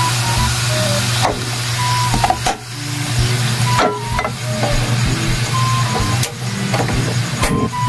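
Metal spatula and knife scraping and knocking against a steel wok as ground meat is stir-fried, with a sizzling hiss and a steady low hum underneath. The scraping comes in repeated strokes about once a second, some of them giving short squeaky tones.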